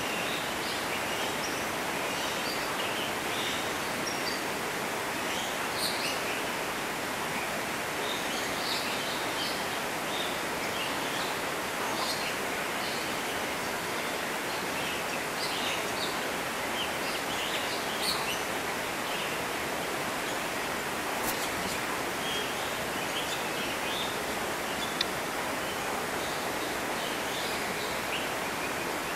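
Steady outdoor background hiss with scattered short, high chirps of small birds, and a couple of sharp ticks in the second half.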